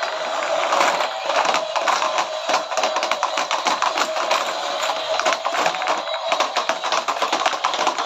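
Several battery-powered light-up toy stunt cars driving and tumbling, with a fast, continuous clatter of hard plastic wheels on the tray and against small plastic balls, over a steady whine.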